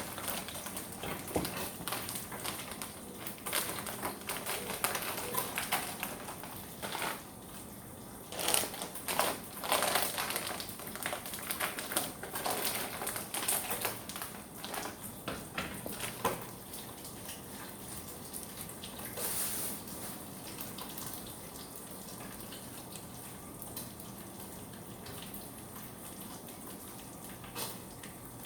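Irregular clicks and knocks of kitchen work, quick and uneven, for roughly the first half. After that they fade into a steady faint hiss with a low hum.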